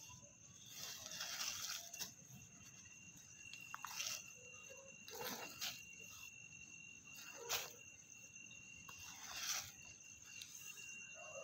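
Faint rustling and scuffing a handful of times as a dark cloth sheet is drawn over a dead puppy, with a steady high-pitched tone in the background.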